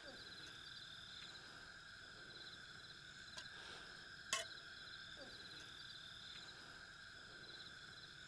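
Faint chorus of night insects chirping steadily in a fast pulsing rhythm. A single sharp click about four seconds in, as a spoon touches a steel cup.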